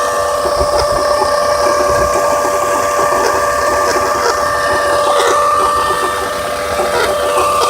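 2003 Saturn Vue 3.0 V6 engine running with a steady whine over fast, dense ticking, a noise the owner puts down to a bad water pump.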